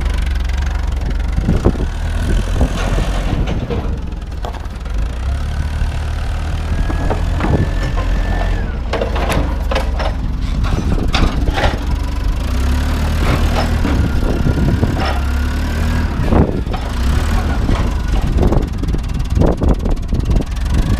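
A motor vehicle engine running steadily, with scattered clanks and knocks over it.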